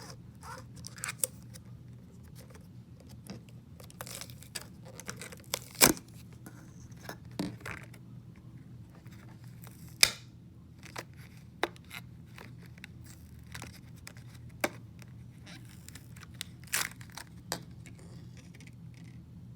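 Slime being mixed and worked by hand: irregular sticky clicks, pops and snaps, the two loudest about six and ten seconds in, over a faint steady hum.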